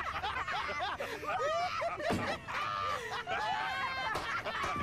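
High-pitched snickering and laughter, with several short rising and falling voice sounds overlapping throughout.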